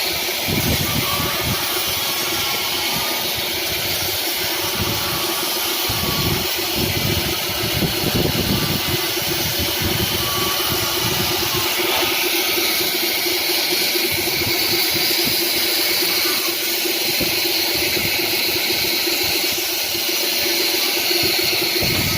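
Woodworking power tool running steadily, its motor noise mixed with a steady hiss.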